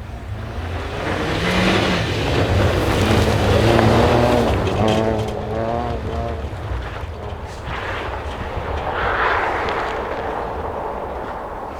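Rally car driven hard past, its engine revving and rising and falling in pitch. It is loudest about four seconds in, then fades away.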